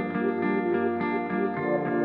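Instrumental intro music: sustained, evenly paced notes with effects, the harmony shifting near the end.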